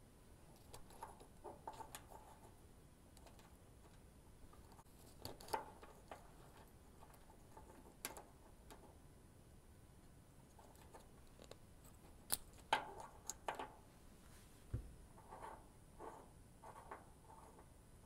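Faint small clicks and scrapes of a bent metal hair clip and brass spade terminals being worked in a plastic 5-pin relay connector. A few sharper clicks come about five and eight seconds in, with a cluster around twelve to fourteen seconds.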